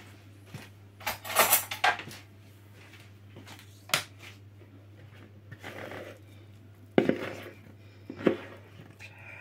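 Metal spoon scraping and knocking against a mixing bowl while chocolate cake batter is scraped out. It comes in separate bouts: a quick run of scrapes about a second in, a single sharp knock about four seconds in, then more scrapes and knocks near the end.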